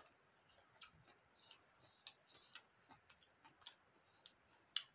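Faint, irregularly spaced mouth clicks and smacks of someone chewing chicken, about eight small clicks, the strongest near the end.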